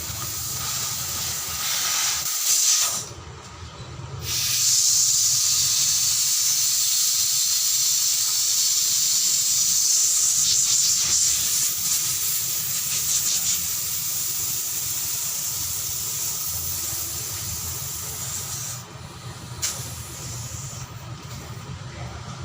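Compressed air from a leak test being vented out of a car air-conditioning system: short hisses, then a long, steady, loud hiss that eases slightly and cuts off about nineteen seconds in. The system held its test pressure, and the pressure is now being released.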